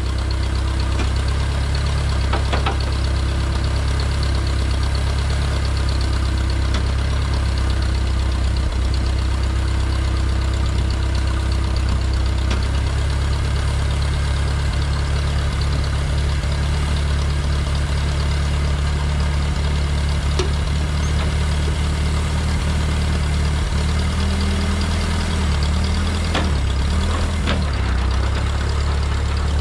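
Case Construction King 530 tractor engine running steadily at idle. A few seconds before the end its speed rises and wavers briefly, then settles.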